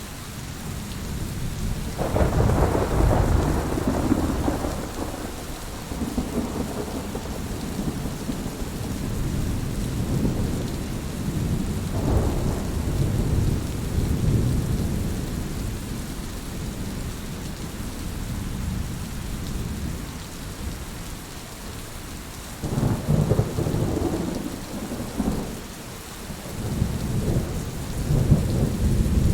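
Heavy rain falling steadily, with low rolls of thunder rumbling in several times: a big one about two seconds in, another near the middle and two more toward the end.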